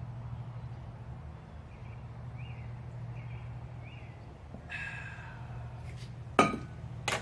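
Two sharp clinks about a second apart near the end, over a steady low hum, with a few faint short chirps earlier on.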